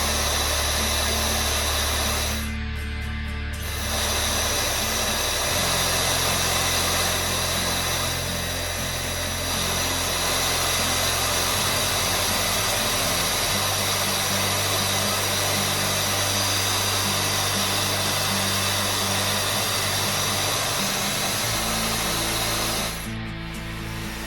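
TOWALIVE hair dryer, a Dyson Supersonic-style clone, blowing: a steady rush of air with a high motor whine. It cuts out briefly about two and a half seconds in and again near the end, over background music with a low bass line.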